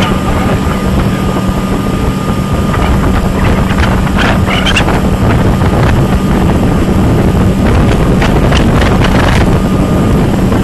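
Motorboat engine running at speed with a steady low hum, mixed with rushing water from the churning wake and wind gusting on the microphone.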